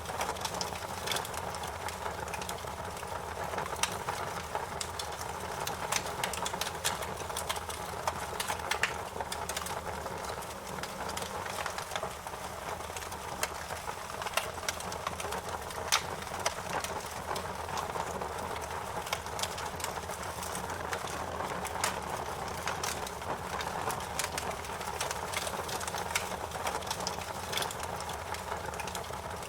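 Campfire crackling: frequent irregular sharp pops and snaps over a steady hiss of burning wood.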